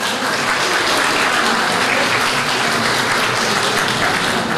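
Audience applauding in steady, sustained clapping at the end of a talk.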